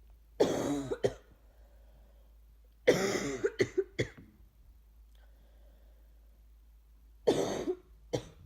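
A woman sick with the flu coughs hard in three fits. The middle fit trails into a few short coughs, and one more short cough comes near the end.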